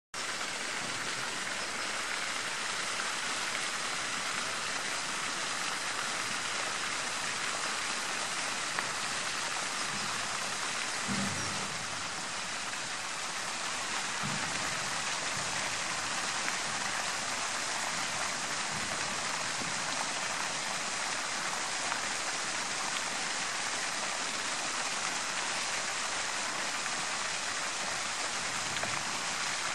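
Steady splashing hiss of water falling from a pond fountain.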